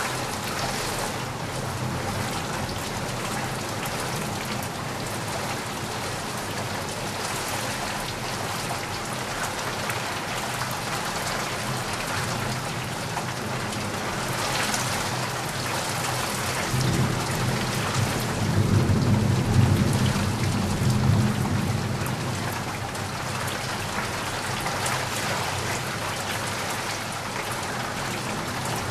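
Steady rain pouring down. Past the middle a low rumble of thunder swells for several seconds, the loudest part, then fades back into the rain.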